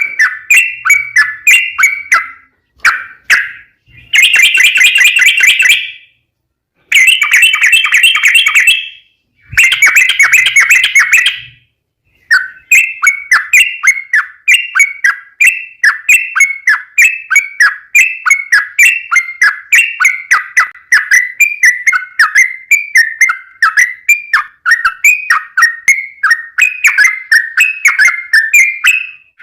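Yellow-vented bulbul (trucukan) singing a long, rapid song around 2 kHz. In the first twelve seconds dense runs of quick notes are broken by short pauses, then a steady string of short falling notes follows.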